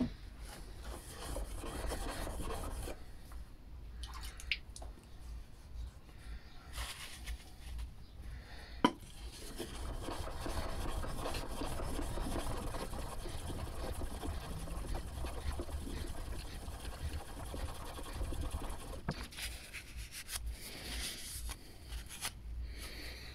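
Back of a steel chisel rubbed back and forth flat on a DMT DuoSharp diamond whetstone, a steady gritty scraping with an occasional sharp click. The back is being flattened until it is shiny all over, working off a last trace of burr on the front edge.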